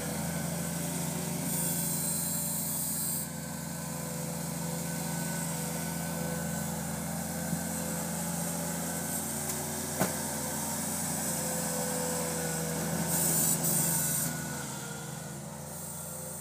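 Ventrac compact tractor's engine running steadily while it plows snow with a V-blade, with two spells of high hiss, one about two seconds in and one near the end. The engine fades near the end as the tractor moves away.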